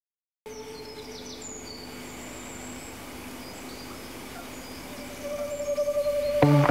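Outdoor ambience with small birds chirping, coming in suddenly after half a second of silence. About five seconds in a steady musical tone swells, and plucked guitar notes begin near the end.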